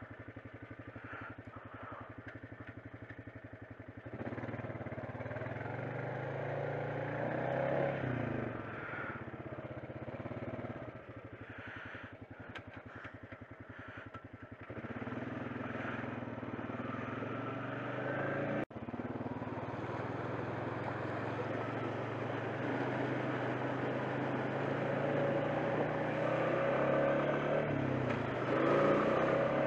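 ATV engine idling, then revving up and easing off as the quad turns around. It then runs steadily under load as it is ridden along the trail, a little louder toward the end.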